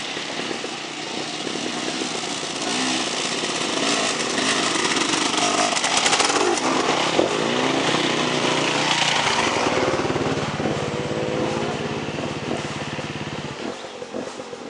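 Off-road dirt bike engine revving as it climbs the trail toward the camera, its pitch rising and falling with the throttle and getting louder toward the middle. It then holds a steady drone for a few seconds before fading near the end.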